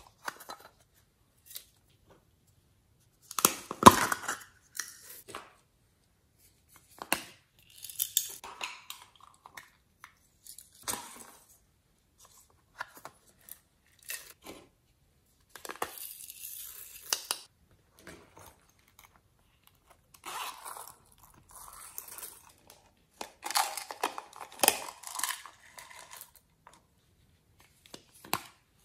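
Slime and clay being handled and mixed by hand: irregular bursts of sticky crackling and tearing with quiet gaps between them. The loudest burst comes about four seconds in, and a longer busy stretch comes about three-quarters of the way through.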